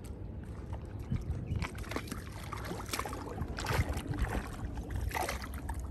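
Labrador retriever wading into a shallow, muddy pond, with water splashing and sloshing irregularly around its legs.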